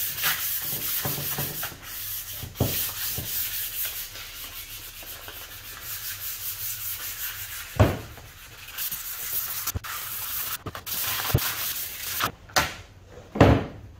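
Fine 400-grit sandpaper rubbed by hand back and forth along a bare wooden axe handle: a steady scratchy hiss of strokes, smoothing the raw wood. A few short knocks break in, the loudest about halfway through and near the end.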